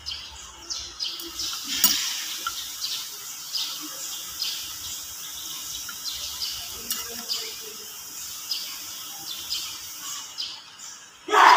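Faint high chirps and ticks recur irregularly, with a few light clicks as bolts on a cast-iron housing are handled. A sudden loud sound starts near the end.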